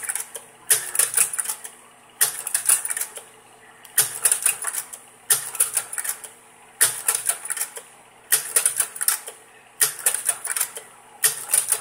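Kodak Carousel 650H slide projector changing slides over and over: a quick clickety-clack burst of clicks from the slide-change mechanism about every second and a half, eight times, over the faint steady hum of the running projector.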